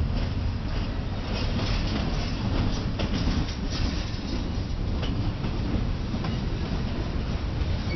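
Freight train cars (boxcars and a tank car) rolling past on the track: a steady rumble of wheels on rail, with a few scattered clacks.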